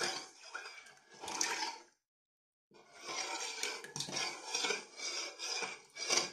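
Metal spoon stirring in an enamel pot of milk, clinking against the pot. The sound cuts out for under a second about two seconds in.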